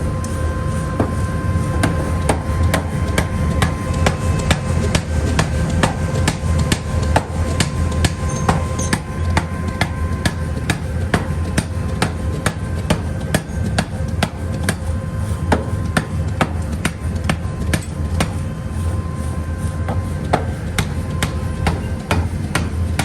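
Metal being hammered in forging: repeated, uneven strikes several a second with a metallic ring, over a steady low machine hum.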